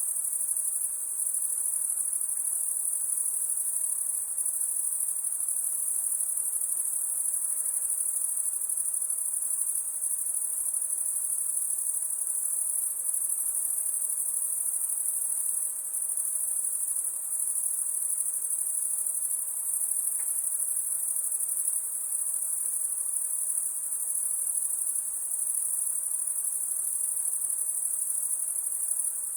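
A night insect's continuous high-pitched sound, holding steady without a break.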